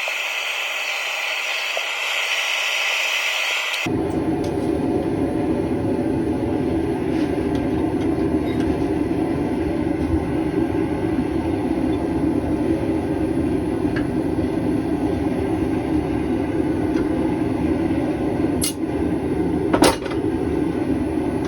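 A forge running with a steady rushing noise while the steel heats. The first few seconds are a thinner, higher hiss with no low end, and two sharp metallic clicks come near the end.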